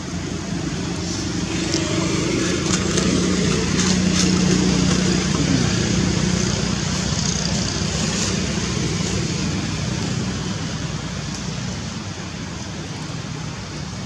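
A motor vehicle passing by: engine and road noise build over the first few seconds, peak about five seconds in, then fade away.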